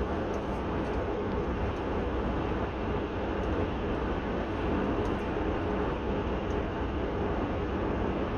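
Steady road noise of a car cruising at motorway speed: tyre noise and engine hum, even and unbroken.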